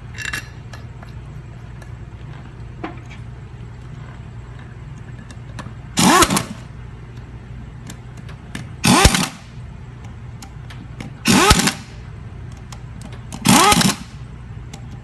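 A handheld power driver spins up and winds down in four short runs, a couple of seconds apart, running the 7/16-inch hub bolts in. A steady low hum sits underneath.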